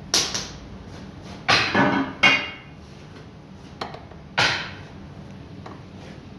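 Steel gearbox parts from a Mercedes Actros truck transmission knocking and clinking together as they are handled, a run of irregular sharp metallic knocks, the loudest cluster about two seconds in with a brief ring.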